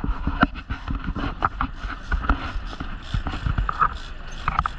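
Low rumble of a boat underway, with irregular knocks and clicks throughout.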